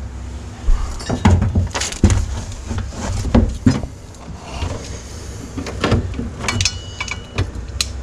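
Hand tools clinking, knocking and scraping against steel bolts and a floor-shifter mounting bracket as the bolts are worked loose: irregular sharp knocks over a low steady rumble.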